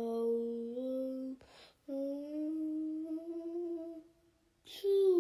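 A cartoon character's voice holding long, drawn-out tones, the sneeze wind-up: a steady tone, then a second that slowly rises in pitch, then a third that falls away near the end, with short breathy bursts between them.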